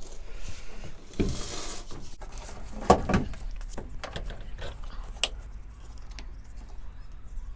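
Small hard parts and tools being handled: a series of clicks and knocks, with a brief rustle a little over a second in and the loudest knock about three seconds in.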